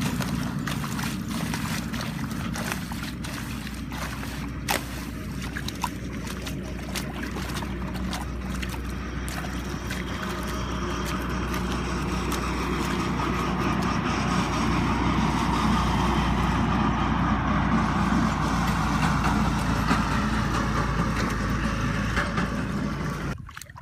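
A hoe chopping and scraping into wet mud and splashing muddy water, with many sharp knocks in the first half and a swelling slosh of water later, over a steady low hum.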